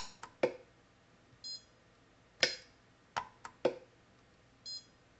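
Orion pulse arc welder tack-welding the layers of a stacked fountain pen nib together: sharp snaps of the weld discharges, seven in two clusters, with a short electronic beep from the welder after each cluster.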